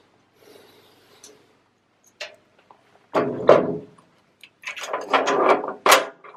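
Handling noises: a couple of clicks, then two bursts of knocking and clattering, about three seconds in and again about five seconds in.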